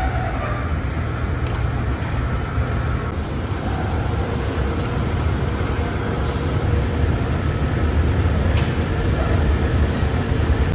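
Heavy industrial machinery running with a steady, loud low rumble; a thin high whine joins about four seconds in.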